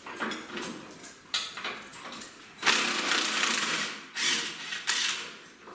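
A power tool runs in three bursts, the first about a second and a half long and two shorter ones after it, with light knocks of tools before them. The tool is backing off the nuts of old shock absorbers.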